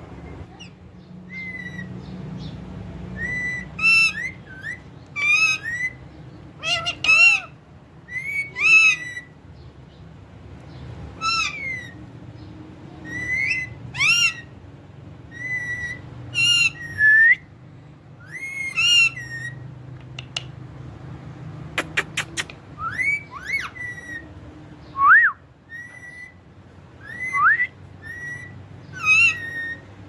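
Indian ringneck parakeets giving repeated whistled calls: short notes that bend up and down around one pitch, coming in quick clusters. A few sharp clicks about two-thirds of the way through.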